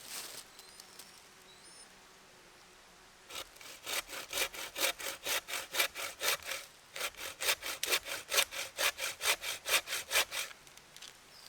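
Hand saw cutting through wood in quick, even back-and-forth strokes, about three a second, starting a few seconds in, pausing briefly halfway and stopping near the end.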